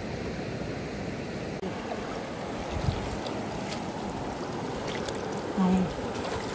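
Steady rush of shallow river water flowing, with a faint tap about three seconds in and a brief low hum near the end.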